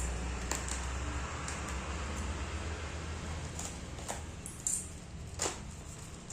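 Scattered short clicks and rustles of hands handling a small keychain carabiner and its packaging, about six in all, the sharpest near the end. A low steady hum runs underneath and drops away after about a second.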